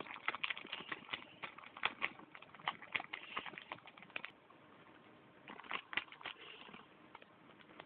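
Plastic candy bag crinkling and rustling in irregular crackly bursts as something moves about inside it. The bursts are busiest in the first four seconds, pause, and come again briefly around six seconds.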